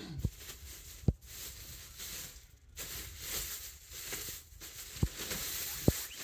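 Rustling and crinkling with four dull thumps, the loudest about a second in.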